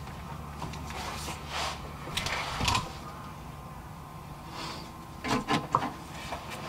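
Scattered clicks, knocks and rattles of hands and tools working the transmission cooler line fittings off a radiator, over a low hum for the first half.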